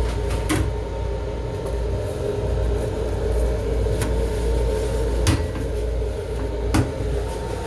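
Steady low rumble and hum of a Long Island Rail Road M7 electric railcar, heard from inside its small restroom, with four sharp knocks or rattles spread through it.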